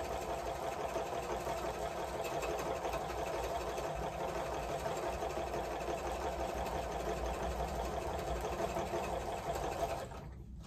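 Electric sewing machine running steadily at stitching speed, stopping suddenly near the end.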